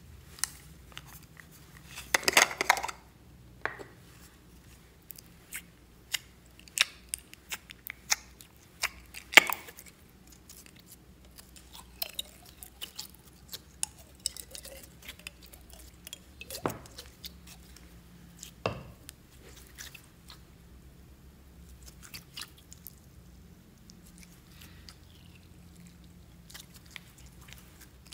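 Close-up handling of a plastic slime container and slime: scattered clicks, taps and sticky squishes, with a louder rustling burst about two seconds in.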